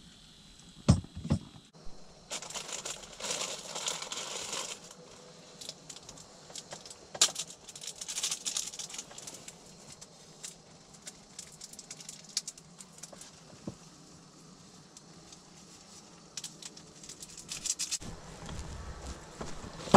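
Clothing rustling with small rattles and clicks as someone handles gear, after two sharp knocks about a second in.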